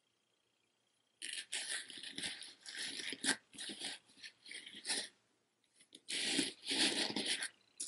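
A multi-strand metal chain necklace rattling and sliding as it is handled and laid out on a tabletop. It comes in two spells: one starting about a second in, the other near the end.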